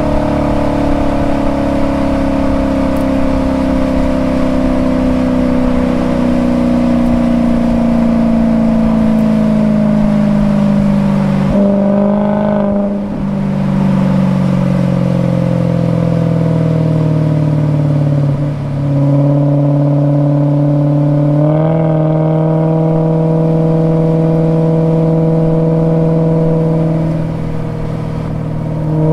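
Maserati Quattroporte Sport GTS's 4.7-litre V8 running at speed through its stock active exhaust. The engine note falls slowly in pitch as the car slows, dips briefly about twelve and eighteen seconds in, steps up slightly about twenty-two seconds in, then holds a steady tone.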